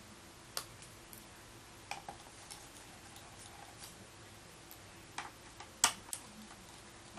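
Faint, irregular small clicks and ticks of a small screwdriver working out the three screws that hold a laptop's hard drive, with the sharpest click about six seconds in.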